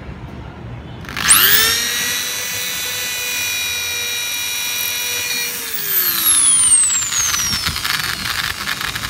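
Electric drill spinning up with a rising whine about a second in and running at a steady pitch. It then drops in pitch and turns rougher and louder as the twist bit bores a hanging hole through the side of the bamboo tube.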